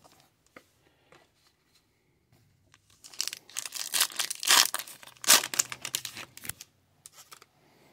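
Foil wrapper of a hockey card pack being torn open by hand: a run of tearing and crinkling crackles starting about three seconds in, with a few last crackles near the end.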